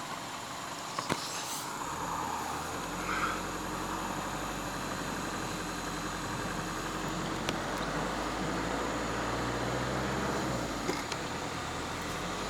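Car engine and road noise as the car moves off: a click about a second in, then a steady low hum of driving from about two seconds in.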